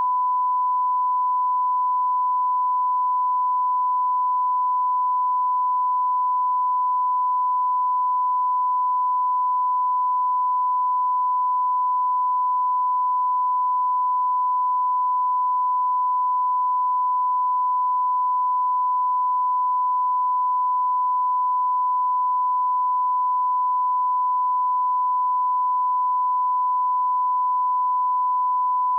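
Broadcast 1 kHz line-up test tone played with colour bars: one unbroken pure beep at a single steady pitch and level.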